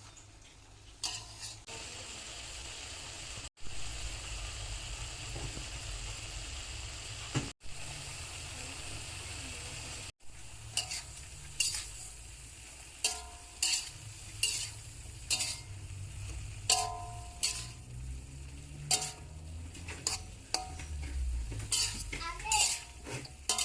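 A vegetable stir-fry sizzling steadily in hot oil in a pan. From about halfway on, a spatula repeatedly scrapes and knocks against the pan as the food is stirred, with a few short metallic squeaks.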